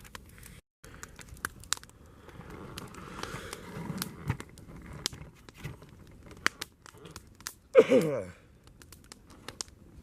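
Wood campfire crackling, with scattered sharp pops over a low hiss. About eight seconds in there is a short sound that falls in pitch.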